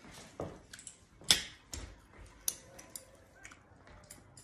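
Scattered sharp clicks and taps of chopsticks and dishes at a meal, the loudest about a second in.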